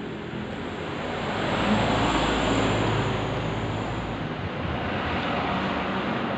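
A rushing noise with a low rumble that swells about two seconds in and eases off after about four seconds, as of a vehicle passing by.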